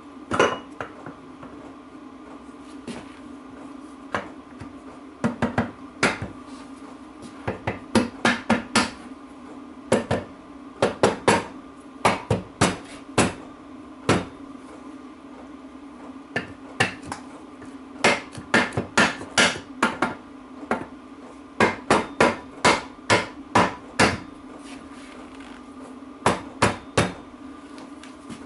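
Mallet tapping the Freelander 2 rear differential's crown wheel carrier housing home into the casing: dozens of sharp knocks, mostly in quick runs of two to six with short pauses between, over a steady low background hum.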